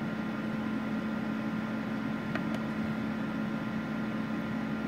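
Steady hum and fan noise from a powered-on Hitbox TIG200P inverter welder, with a couple of faint clicks about two and a half seconds in as its current knob is turned.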